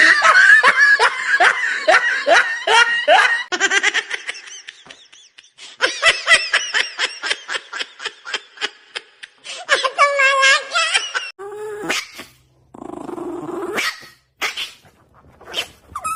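Human laughter in long runs of rapid, repeated ha-ha bursts, in three stretches with short gaps between. Near the end it gives way to other, briefer sounds.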